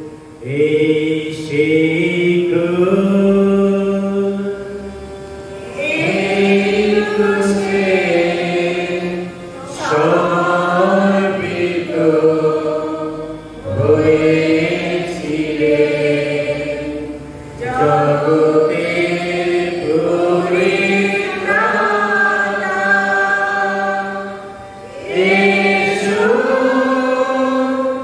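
A man singing a slow liturgical chant into a microphone, in phrases of a few seconds with long held notes and short breaks between them.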